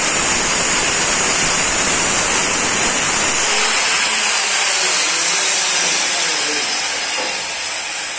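Handheld electric marble cutter sawing a granite slab: a loud gritty grinding over a steady high motor whine. About three and a half seconds in the blade comes off the stone, the deeper grinding drops away, and the whine slowly dies down.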